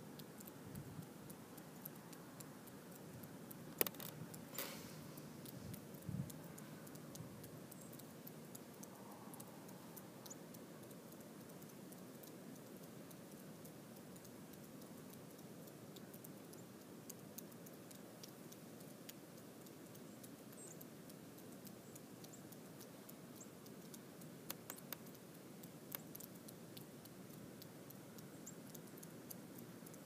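Quiet ambience: a faint steady hiss with scattered light ticks, and a few sharper clicks about four and six seconds in and again around twenty-five seconds.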